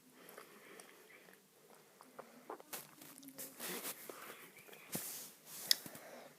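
Someone biting and chewing a chocolate-covered Turkish Delight close to the microphone: scattered clicks and short crackly noises, busier in the second half, with a sharp click near the end.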